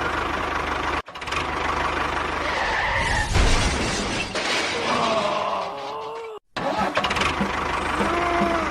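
Engine running with a steady low pulse, cut off abruptly twice as if by edits, with short squeaky gliding tones over it in the second half.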